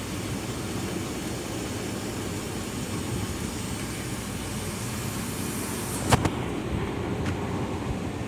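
Steady low hum of car traffic in a crowded parking lot, with a sharp click about six seconds in.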